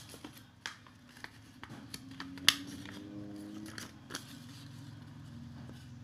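A string of sharp clicks and light taps from a Sanrenmu 4079 folding pocket knife being handled on a wooden table alongside a sheet of paper. The loudest click comes about two and a half seconds in, and the clicks thin out after about four seconds.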